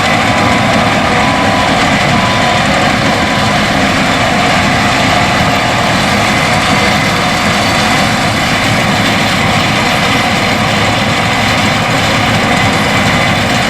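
Case IH 8250 combine harvester running steadily under load while harvesting wheat: continuous engine and threshing machinery noise with steady whining tones.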